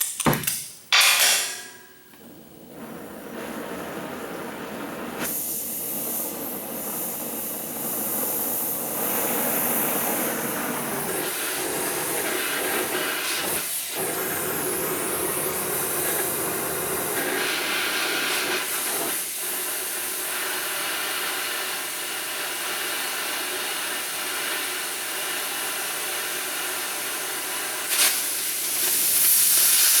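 Hand-held cutting torch hissing steadily as it cuts through steel C-channel, the flame and gas jet making an even rushing hiss. A couple of sharp knocks come about a second in, and the hiss grows louder near the end.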